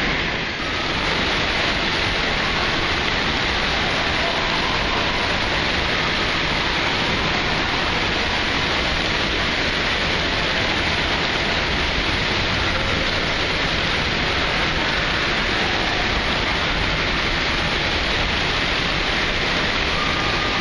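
Steady rush of running, spraying and splashing water in an indoor water park.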